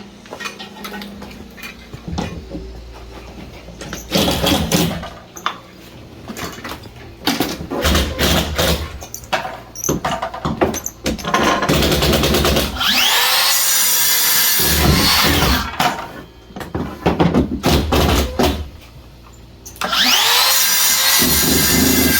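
A power saw cutting small pieces of timber twice, its motor spinning up and winding down each time, with knocks and clatter of the wood being handled between the cuts.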